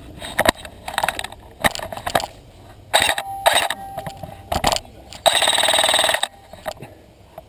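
Airsoft M4 rifle firing: scattered sharp shots and short bursts, then a rapid full-auto burst lasting about a second near the end.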